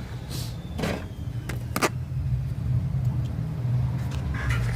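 A few sharp clicks from hand tools at the open engine over a steady low hum.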